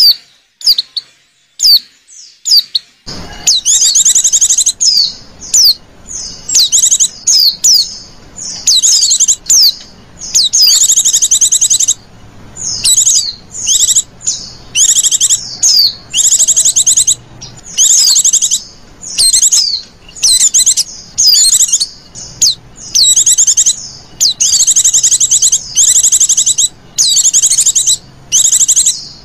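White-eyes (pleci) calling: rapid high-pitched chirps, short sweeping whistles and fast trills, played as a lure call to draw in wild white-eyes. A few scattered chirps at first, then almost unbroken chirping from about three seconds in.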